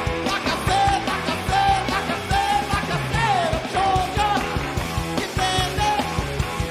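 Garage punk band playing live: fast drums and guitars under a shouted, sung lead vocal that holds high notes and swoops down about halfway through.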